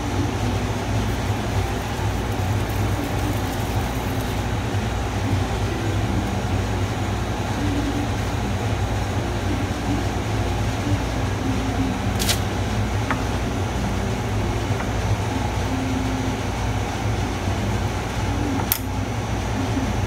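Steady low mechanical hum with an even haze of noise above it, and two faint clicks, about twelve and nineteen seconds in.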